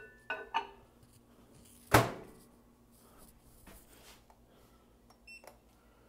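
A ceramic mug clinks twice as it is set down inside a microwave oven. About two seconds in, the microwave door shuts with a loud thump.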